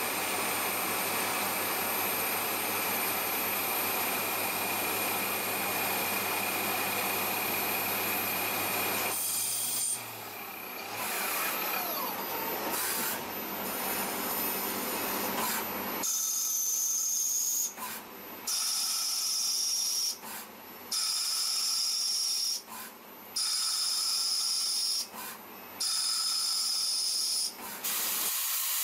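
CNC lathes machining brass parts under coolant: a steady hissing run of cutting noise, which changes about nine seconds in. From about sixteen seconds a high whine starts and breaks off in short repeated cycles, about every two and a half seconds.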